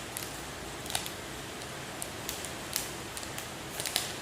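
A plastic snack packet being handled and opened, with irregular sharp crinkles and crackles of the wrapper, several clustered near the end.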